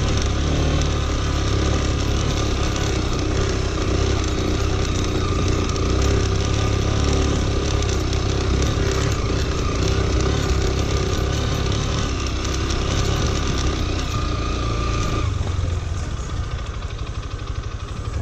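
Lifan KPT motorcycle's single-cylinder engine running at low revs as the bike rolls downhill over rough dirt, with the chassis rattling over the bumps. About three-quarters of the way through the engine note eases off and gets a little quieter.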